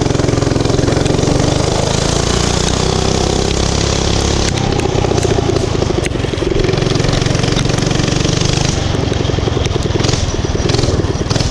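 Small pull-start gas engine of a home-built bike running steadily and loudly, its pitch shifting slightly a couple of times.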